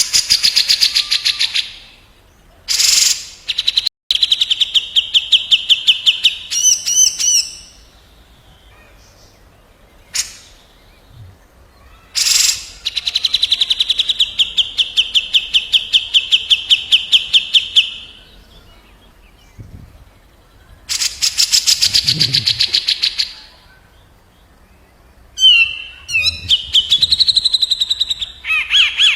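Cucak jenggot (brown-cheeked bulbul) and kapas tembak birds trading calls: bouts of fast, rattling rolled trills, a few lasting several seconds, with short gaps between them.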